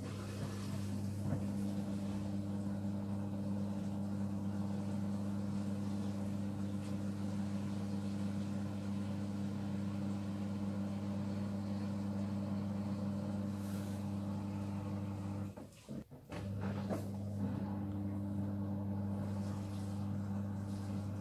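Miele W1 WKF 130 washing machine running with a steady low electric hum. The hum cuts out for about a second roughly three quarters of the way through, then starts again.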